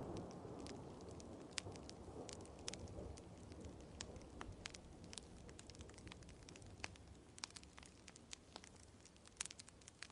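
Wood fire crackling with scattered sharp pops, over the tail of a rumble of thunder that fades away during the first few seconds.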